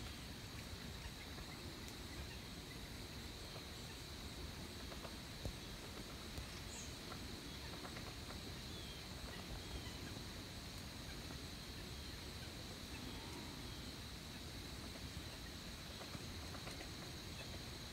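Faint outdoor field ambience: a steady high-pitched hum over a low rumble, with a few faint bird chirps and a couple of soft ticks about five and six seconds in.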